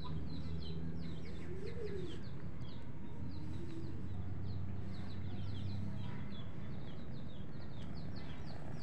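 Small birds chirping: quick, high, falling chirps repeat several times a second, over a steady low hum.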